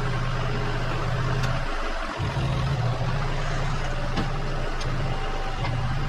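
An engine running at a steady speed, dipping briefly about two seconds in and cutting off sharply at the very end.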